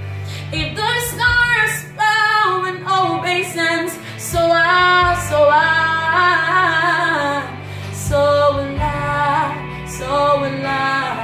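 A woman singing a worship song solo, in long held notes and bending runs with short breaks between phrases, over a low steady hum.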